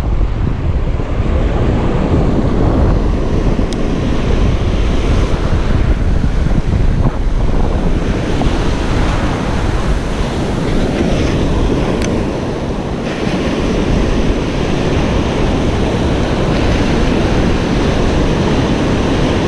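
Ocean surf breaking and washing around the shins in the shallows, a steady rushing wash, with wind buffeting the microphone.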